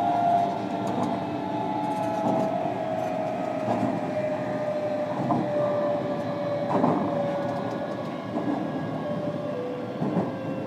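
Running sound of a 305 series electric train heard inside a motor car, with wheel and rail noise. The traction motor whine falls steadily in pitch as the train slows.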